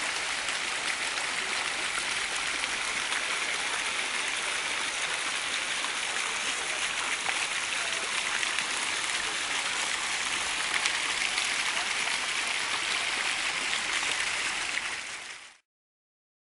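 Rows of small fountain jets splashing steadily into a shallow water channel, an even rush of falling water that fades out near the end.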